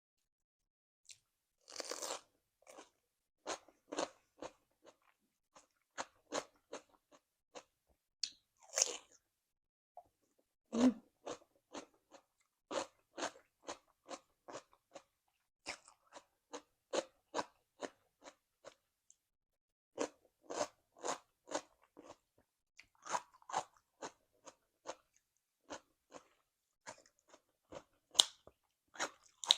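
A person chewing crunchy food close to the microphone, with crisp, regular crunches at about two a second and a few louder bites. The chewing pauses briefly about two-thirds of the way through.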